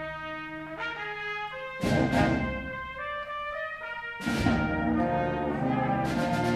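A school concert band playing: brass and woodwinds hold sustained chords that move from note to note. The full band swells louder about two seconds in and again just after four seconds.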